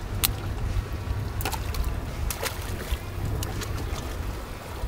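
A steady low rumble on an open boat, with about half a dozen sharp clicks and knocks scattered through it as a stone crab is handled, the strongest just after the start.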